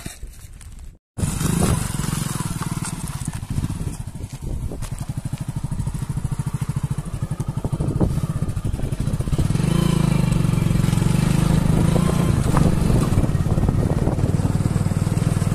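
Motorcycle engine running with a rapid, even firing pulse, after a brief dropout about a second in; it grows louder about ten seconds in.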